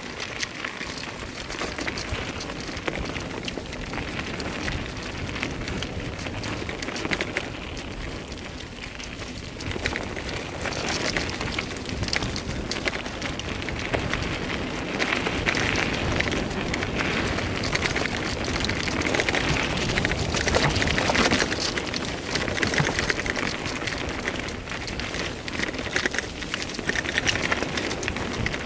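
Wind rushing over the microphone and tyres rattling over a rough trail on a fast bicycle descent, with a steady crackle of small knocks and clatter throughout.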